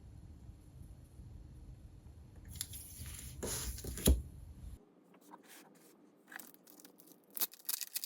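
Paper and plastic kit items being handled: rustling and crinkling with a sharp tap about four seconds in, then scattered crisp crackles.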